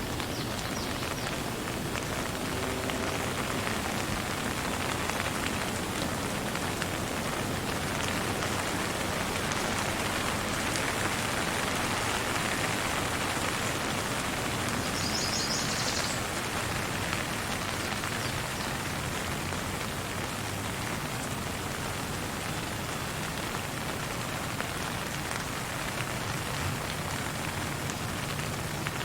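Steady rain, an even hiss of falling drops with no thunder, swelling slightly in the middle.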